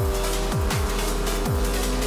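Electronic music: deep bass hits that drop in pitch, roughly one every three-quarters of a second, under held synth notes.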